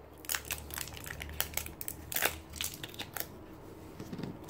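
Crinkling and crackling of a roll of washi tape being unwrapped and its paper label sticker peeled off by hand, a quick run of small crackles that dies down about three seconds in.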